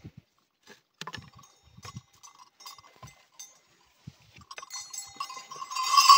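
Round metal neck bells (khankar) on a bullock clinking and jingling as the wooden yoke is worked loose, with a few light wooden knocks. About five seconds in the bells start jingling steadily and get louder.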